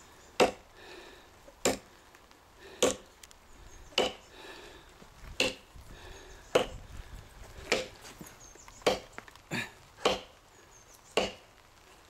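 Cold Steel Trail Hawk tomahawk chopping into a hard seasoned elm log: about eleven sharp strikes of the blade into the wood, roughly one a second.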